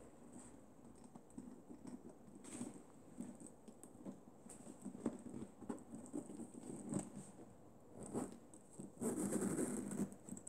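Handbag being handled: scattered light clicks, taps and rustles of its handles and hardware, then its metal zip pulled in one run of about a second near the end.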